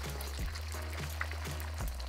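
Background music with a steady beat of about two a second and a bass line. Under it, beaten eggs sizzle in hot oil in a wok.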